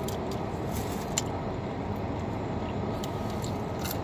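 Steady road and engine noise heard inside a moving car's cabin, with a few faint clicks.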